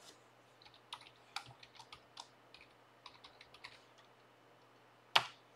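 Typing on a computer keyboard: a quick run of key clicks, then one much louder click about five seconds in.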